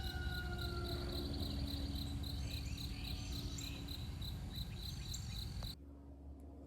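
Background insects chirping in a steady, rapid pulsing trill, with a low hum underneath; it cuts off suddenly near the end.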